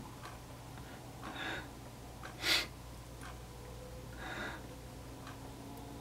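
A man breathing through his nose, with soft exhales about a second and a half in and again near four and a half seconds, and a loud, sharp sniff about two and a half seconds in.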